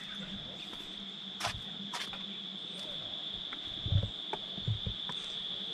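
A steady, high-pitched insect drone, with a few low thumps of footsteps climbing concrete steps about four seconds in.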